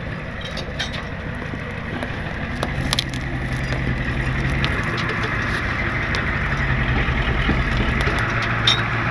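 Tow truck's engine running as it reverses slowly over a dirt trail, getting louder as it comes closer, with scattered sharp crackles of twigs and gravel under the tyres.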